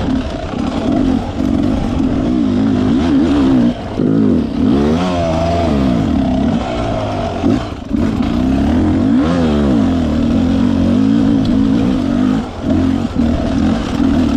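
Dirt bike engine under throttle, revving up and down as it is ridden, with the throttle shut briefly about four, eight and twelve seconds in.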